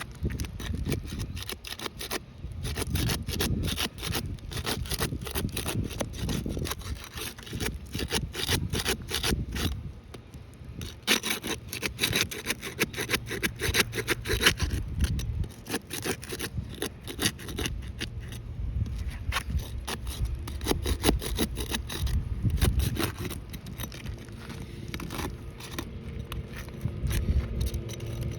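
Repeated scraping and rubbing against gritty asphalt roof shingles, a dense run of quick scratches over a low rumble.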